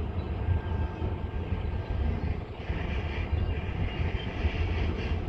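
Wind buffeting the microphone over the low rumble of a train's diesel locomotives. A higher hiss swells about halfway through.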